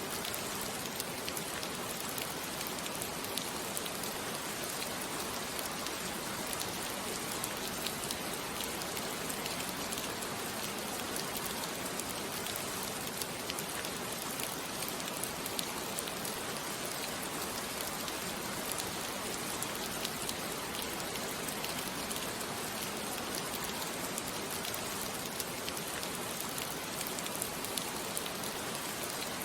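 Steady rain falling: an even hiss sprinkled with many small drop ticks.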